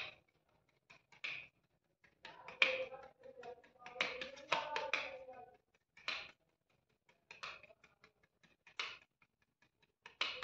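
Two-part body filler being mixed with hardener using a putty knife on a flat spreader blade: short scraping and tapping strokes that come in bursts, separated by brief pauses.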